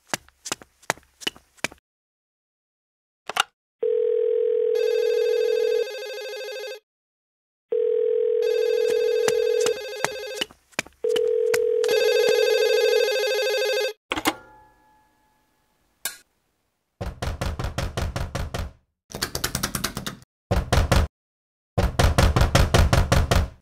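Stop-motion sound effects: a few short clicks, then three spells of a steady telephone dial tone, each giving way to a ringing phone tone. Near the end come several bursts of rapid, evenly spaced tapping.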